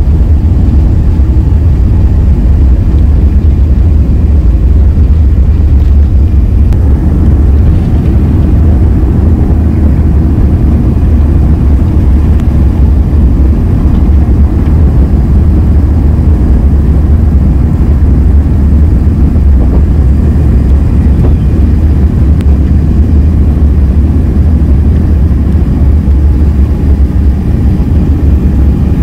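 Loud, steady low rumble of an Airbus A350-900's Rolls-Royce Trent XWB engines at takeoff power, heard from inside the passenger cabin.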